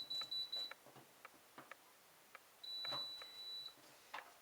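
Control-panel beeps of a Hotpoint Aquarius+ TVF760 tumble dryer: a steady high beep that stops under a second in, then a second beep lasting about a second near the middle. Short light clicks from the dryer's dial or buttons come in between.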